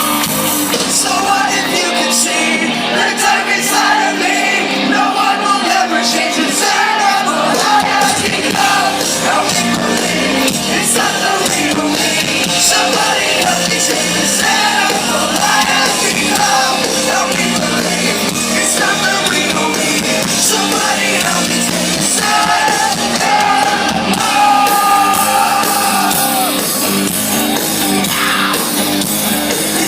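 Live hard rock band playing loudly with a sung and shouted lead vocal over the full band.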